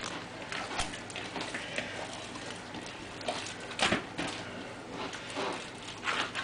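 Hands kneading a large batch of bread dough in an earthenware bowl: irregular soft slaps and thumps of the hand against the dough, with one louder knock about four seconds in.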